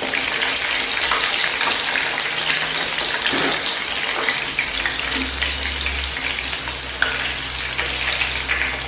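Batter-coated boneless chicken pieces deep-frying in hot oil: a steady sizzle with constant fine crackling, while a slotted skimmer lifts fried pieces out of the pan.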